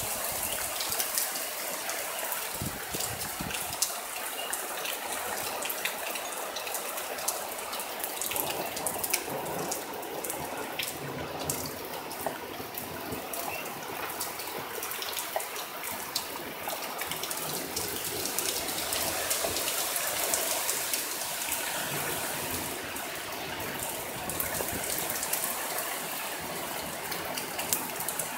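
Heavy thunderstorm rain pouring down steadily: a continuous hiss of rainfall with many sharp drop splashes close by.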